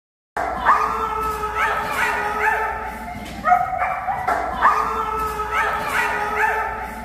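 German Shepherd whining and yipping in excitement, high rising cries coming round again and again, starting suddenly about a third of a second in.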